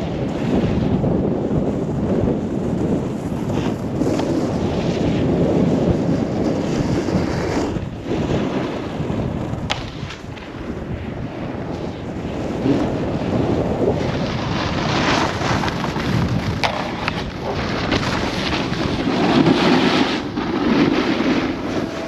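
Wind buffeting the microphone of a camera carried by a moving snowboarder, with the scrape of snowboard edges on packed snow. A sharper hiss of snow joins in over the second half.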